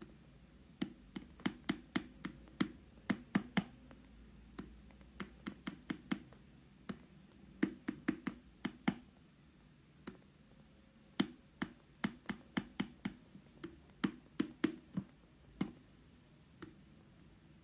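A stylus tapping on a small 3.5-inch TFT touchscreen: dozens of sharp clicks in quick irregular runs, with short pauses between them.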